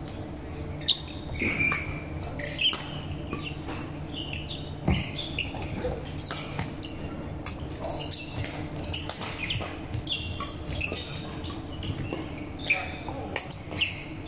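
Badminton rally on a wooden indoor court: rackets strike the shuttlecock with sharp pops at irregular moments, and players' shoes squeak on the floor, over a steady low hum in a reverberant hall.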